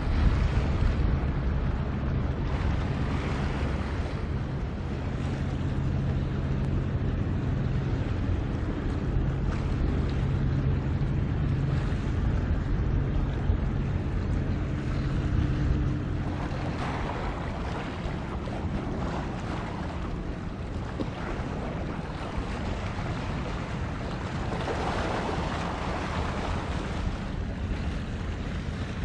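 A ship's diesel engine hums low and steady across the water, fading somewhat about halfway through, under a constant wash of wind and water noise that swells twice in the second half.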